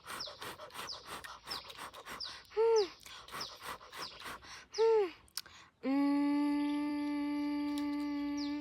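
Two short 'wow' voice clips, each rising then falling in pitch. About six seconds in, a flat, steady tone starts and holds for nearly three seconds. Light ticks and short falling chirps sound in between.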